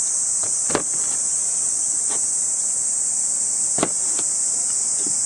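Kitchen knife cutting eggplant on a plastic cutting board: a few short knocks of the blade on the board, the sharpest just under a second in and about four seconds in, over a steady high-pitched drone of insects.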